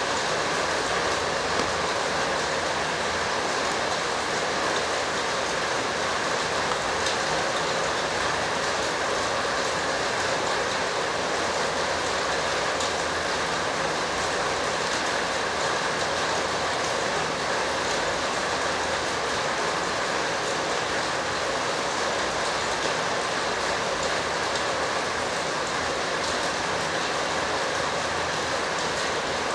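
A steady, even rushing noise with no breaks or rises.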